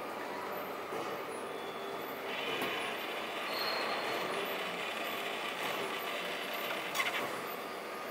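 The small motors and gearing of a mechanical nativity scene running steadily, with a higher whir joining about two seconds in and a sharp click near the end.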